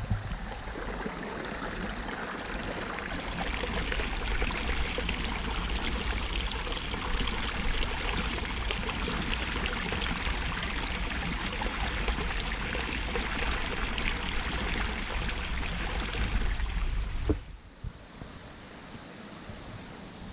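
Mountain stream water rushing and splashing over rock at a small waterfall, a steady noise. About seventeen seconds in it drops abruptly to a fainter water sound.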